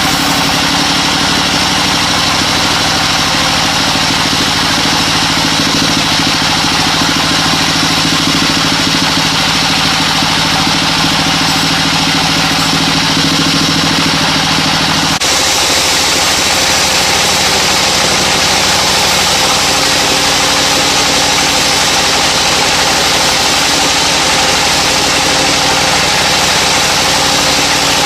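A sawmill's engine running steadily. About halfway through, the sound changes abruptly: the low hum shifts and a higher hiss grows stronger.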